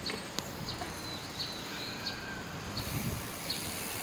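Steady road noise from riding a bicycle along a street, with scattered short high chirps and a few faint clicks.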